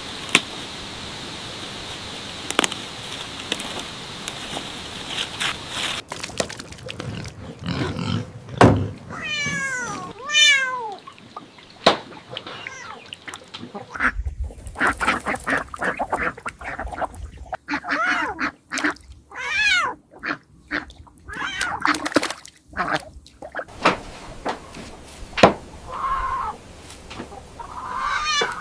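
Cats meowing several times, a few drawn-out calls that rise and fall in pitch, among many sharp clicks and knocks. A steady hiss runs through the first six seconds and then stops.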